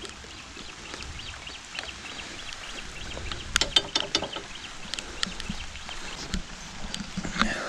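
Scattered clicks and knocks of hands working the controls and fittings of a diesel irrigation pump engine that is not running, with a short cluster of sharper knocks about three and a half seconds in.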